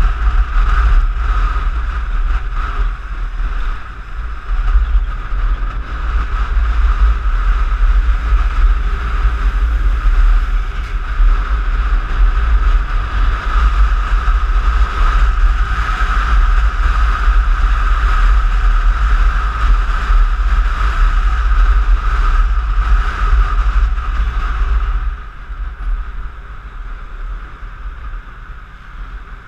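Wind rushing and buffeting over the camera on a moving Piaggio X9 scooter, with the scooter's engine running steadily underneath. About 25 seconds in the rush drops off sharply as the scooter slows in traffic.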